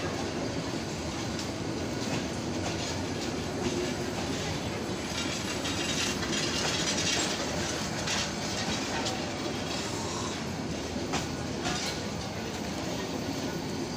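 Passenger coaches of an intercity train rolling past, with a steady rumble and wheels clacking over the rail joints now and then.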